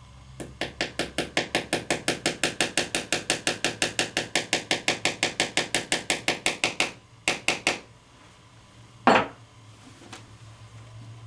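A nail being driven into a wall with quick, light hammer taps, about six a second for some six seconds, with a ringing tone that rises slowly in pitch. Three more taps follow, then one heavier thump about nine seconds in.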